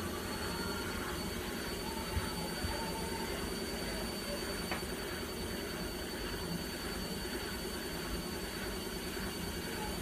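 Indesit front-loading washing machine running with a steady rumble and a faint, steady high-pitched whine.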